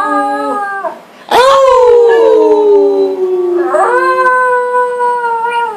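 Chihuahua howling together with people howling along, several voices overlapping in long drawn-out notes. There is a short break about a second in, then a loud howl that slides downward, and another held howl near the end.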